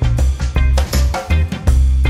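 Background music with a steady drum beat and a heavy bass line.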